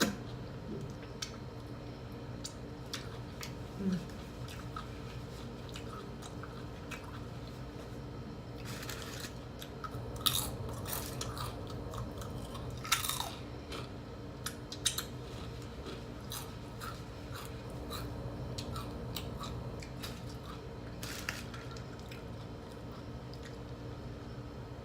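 A person chewing food close to the microphone, with scattered small mouth clicks over a steady background hum.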